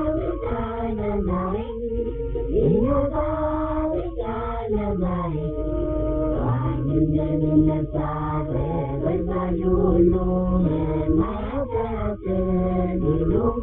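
Chant-like singing used as background music, with long held notes that slide between pitches.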